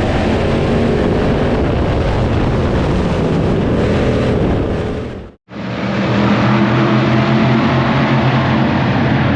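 Dirt late model race cars' V8 engines running hard as the field laps the track in a heat race. The sound cuts out abruptly for an instant about five seconds in, then returns.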